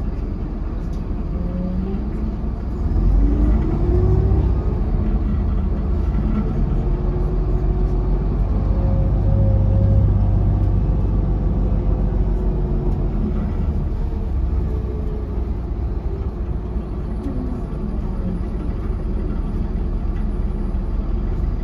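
Mercedes-Benz OH1728 bus heard from inside the cabin while under way: a steady low engine rumble with the ZF automatic transmission's musical whine. The whine rises in pitch a second or two in as the bus pulls away, then holds at a higher, steadier note.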